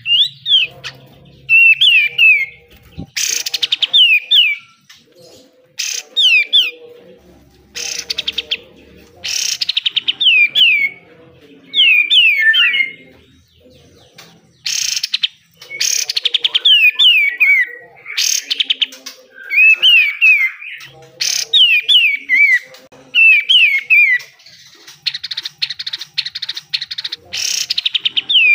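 Kapas tembak (a bulbul) singing: bright whistled phrases made of short downward-sliding notes, repeated every second or two and broken up by loud, fast, harsh rattling bursts (the 'besetan'). Near the end a longer run of rapid rattling notes lasts about two seconds.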